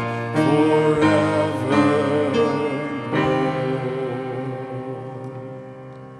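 The end of a hymn: voices with accompanying instruments sing the last line, then hold the final chord, which slowly dies away from about three seconds in.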